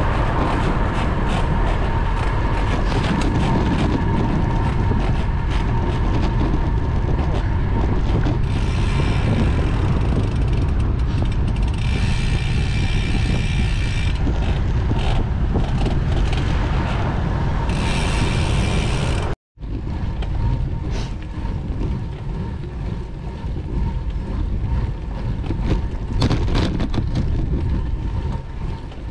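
Wind rushing over the microphone of a road bicycle being ridden, a steady low rumble. The sound cuts out for an instant about two-thirds of the way through.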